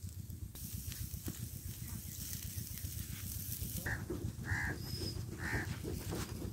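Wind rumbling on the microphone, with a spell of hiss and crackle over the first few seconds. Near the end come three short calls from an animal.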